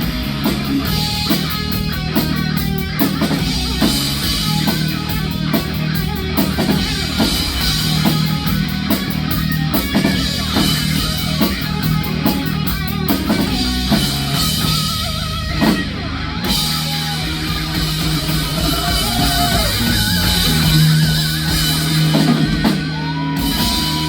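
Rock band playing live: distorted electric guitars over a drum kit in an instrumental stretch, with wavering, bent lead notes near the end.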